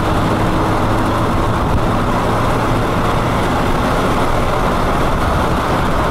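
A car driving off at speed: steady engine hum with road and wind noise, heard from inside the cabin.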